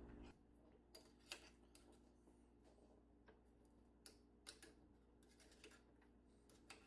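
Near silence, with a few faint clicks and taps of a spoon against the metal mixer beaters as mashed potato is scraped off them. A faint low hum stops just after the start.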